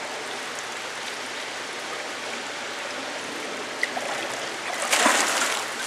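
Water pouring steadily into a hatchery fish tank from its inflow pipe, with a louder splash about five seconds in as a muskie is held in the water.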